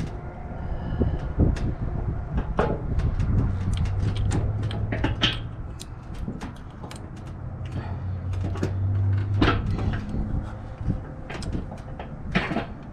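Steel pivot pin clinking and knocking against the snow plow blade's steel mounting brackets as it is wiggled and pushed into a tight, not-yet-aligned hole. The knocks are irregular and come throughout. A low hum comes and goes twice in the background.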